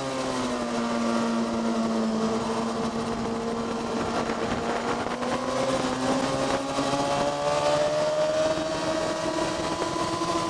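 Vehicle engine lapping a race track: the revs drop at the start, hold steady for a few seconds, then climb steadily from about halfway as it accelerates, over steady wind and road noise.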